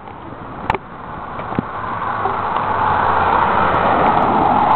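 A car approaching along the road, its tyre and engine noise swelling steadily and peaking near the end as it draws level and passes, without sounding its horn. A short sharp click about a second in.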